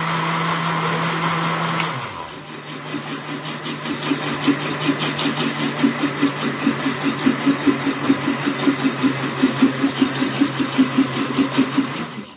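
Electric countertop blender motor running on milk, sugar and cocoa, its pitch dropping slightly about two seconds in. It settles into a rhythmic churning, about three or four pulses a second, as oil is drizzled in and the mixture thickens into chocolate sauce.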